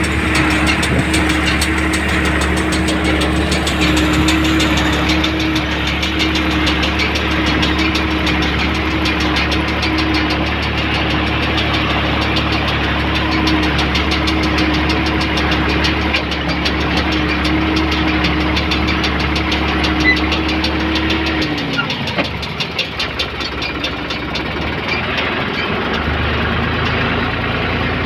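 New Holland 55-56 tractor's diesel engine running steadily with the Tümosan S690 baler hitched behind, heard from inside the cab, with a steady whine over the engine. A little past two-thirds through the whine falls in pitch and fades and the low rumble drops away, then the engine sound comes back up a few seconds before the end.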